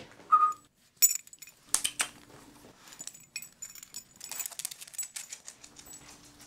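Light metallic clinks and clicks of small objects being handled: a few sharp ones in the first two seconds, then a quick run of them about four to five seconds in. A short high squeak comes right at the start.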